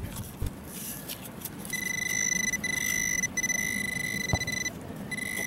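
Metal-detecting pinpointer giving a steady, high buzzing tone while probed in a freshly dug hole, signalling metal close to its tip. The tone starts about a third of the way in and breaks off briefly a few times. Before it there is the scrape and rustle of soil being dug.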